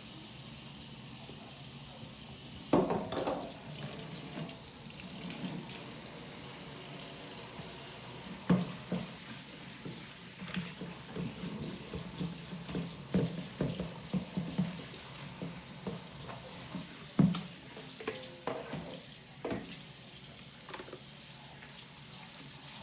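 Kitchen tap running into a sink while dishes are washed, with repeated clinks and knocks of dishes and several sharper clatters.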